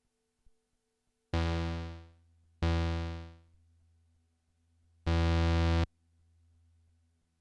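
Korg ARP Odyssey analogue synthesizer playing the same low bass note three times. The first two notes are struck and die away, growing duller as they fade. The third is held at a steady level for under a second and cuts off abruptly.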